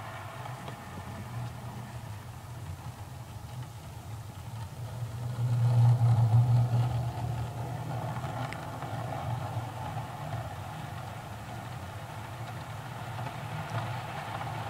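Model freight train running along the layout track, a steady low mechanical hum that swells as the train passes about six seconds in, then eases back.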